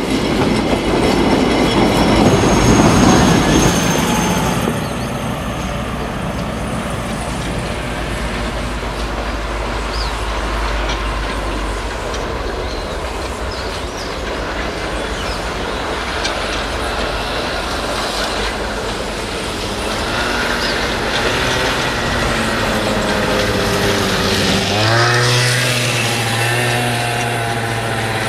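Small open-carriage tourist train running on rails: loud rattling ride noise close up, then a steadier, quieter rumble once it is heard from farther off. Near the end a strong pitched tone with rising glides comes in over the running.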